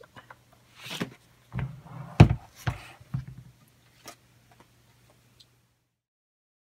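A few knocks and rustles from hands handling a fabric-covered rolling craft tote and its snap-on spinner wheels, the loudest knock about two seconds in. The sound then cuts off to dead silence near the end.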